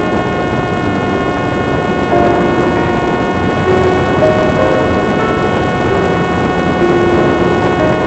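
Parrot Disco fixed-wing drone's electric motor and propeller running at about 70% power in fast flight: a steady whine of several even tones over a rush of wind.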